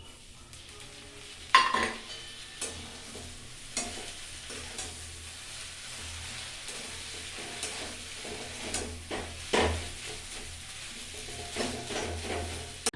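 A vegetable paratha filling of mashed boiled potato and fried vegetables sizzles gently in a pan while it is stirred. Irregular scrapes and knocks of the stirring utensil against the pan sound over it, the loudest about one and a half seconds in.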